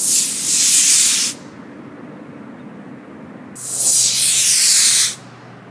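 Two homemade sugar-propellant model rocket motors firing at liftoff. Each is a loud hiss about a second and a half long that cuts off suddenly; the second starts about three and a half seconds in.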